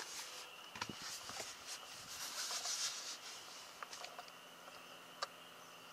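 Clicks and plastic rustling as the lid of a Koolatron P27 12 V cooler is handled and opened. Underneath runs a faint, steady whine, consistent with the cooler's fan, which has been fixed and now runs quietly.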